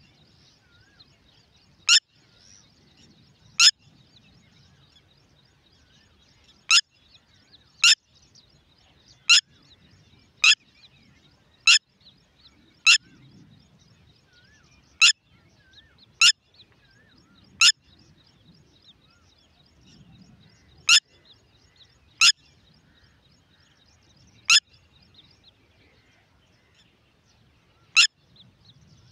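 Red-wattled lapwing giving single short, sharp, high-pitched call notes, about sixteen of them at uneven gaps of one to three seconds. Faint chirping of small birds continues underneath.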